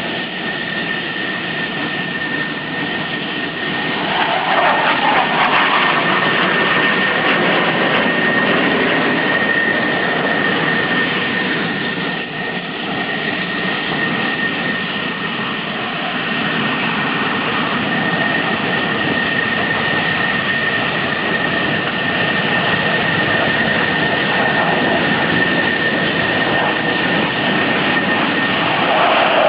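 F-14 Tomcat jet engines running loud and steady with a high steady whine over a dense rush, swelling about four seconds in.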